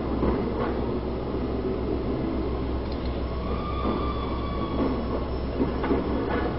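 Streetcar running along its street track with a steady low rumble and some knocks. A thin wheel squeal rises over it from about three to five seconds in.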